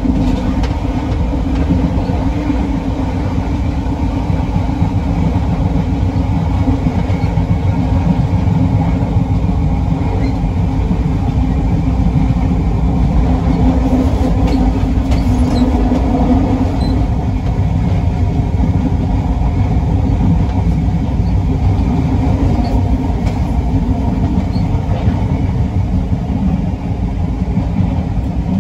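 Stationary Class 456 electric multiple unit with its onboard equipment running: a steady low hum and rumble that does not change.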